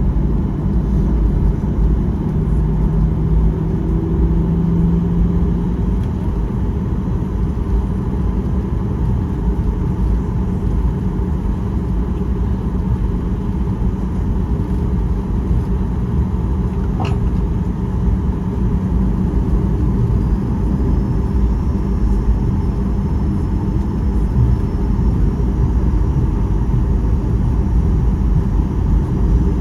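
Cabin noise of a Boeing 737-800 on the ground after departure clearance: its CFM56 jet engines and airframe give a steady low rumble that grows slightly louder near the end. A short click sounds about two-thirds of the way through.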